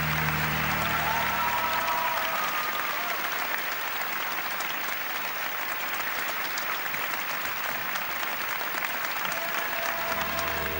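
Arena audience applauding steadily, with a few whistles over the clapping. Piano-led music fades out at the start.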